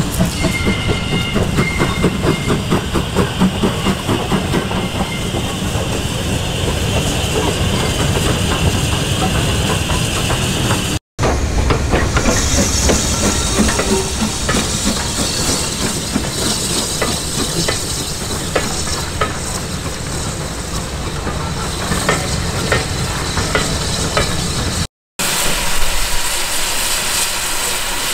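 Steam train running: a steady rush with hissing steam and a rhythmic clatter, strongest in the first several seconds. It breaks off abruptly twice.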